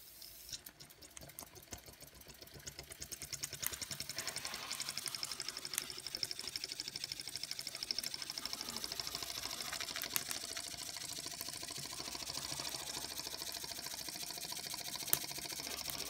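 A circa-1900 Radiguet No. 2 model steam engine running under steam, its small cylinder and flywheel making a rapid, even clicking beat with a steam hiss. It gets louder and faster over the first few seconds, then runs steadily, with a few sharper clicks.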